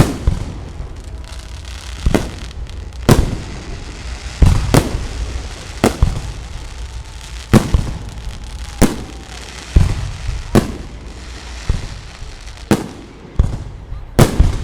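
Fireworks display: aerial shells bursting in a string of about fifteen loud bangs at uneven intervals, each trailing off into a rumbling tail, over a steady low rumble.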